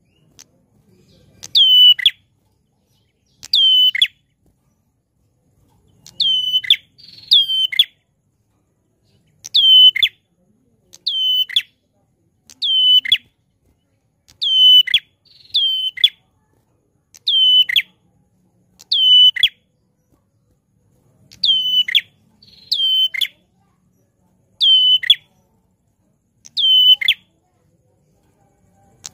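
Caged prenjak klawu giving a loud, sharp call over and over. Each call is a quick piercing note sliding downward, repeated about every second or two and now and then in quick pairs.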